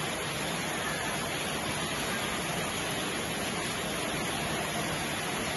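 Steady rain falling: an even, unbroken hiss with no single drops standing out.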